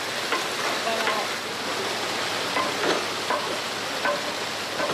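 Steady rushing hiss of running water, with a few faint short calls over it.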